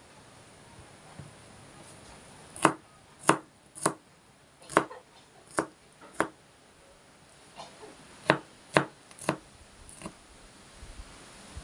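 Kitchen knife chopping garlic cloves on a plastic cutting board: sharp blade knocks on the board, about a dozen in all, in two runs, the first starting about two and a half seconds in and the second around eight seconds in.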